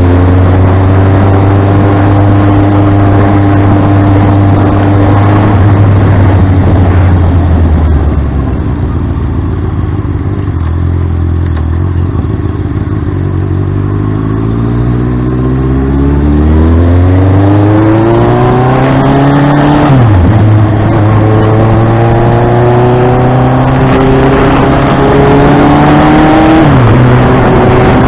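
Honda CB650R inline-four with an SC Project full-system exhaust, running steadily at first and then accelerating. Its pitch climbs, drops sharply about 20 seconds in and again near the end as it shifts up, and climbs again after each shift.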